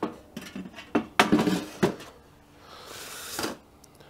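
Perforated metal fuel grate clanking against the steel body of an Ooni Karu 16 pizza oven as it is slotted into place: several sharp metal knocks in the first two seconds, then a short scraping slide about three seconds in.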